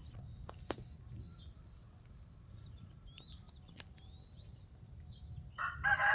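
A rooster crowing, a loud long pitched call that starts near the end, after a few faint clicks.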